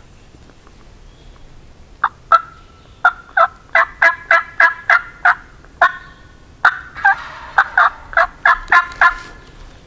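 Turkey call imitating a hen: a loud, irregular run of about twenty short, sharp yelps and cutts, starting about two seconds in.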